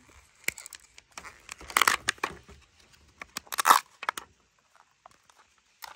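Plastic packaging of a Kinder Joy toy being handled and opened: crinkling and tearing in two louder bursts, about two seconds and three and a half seconds in, among small clicks.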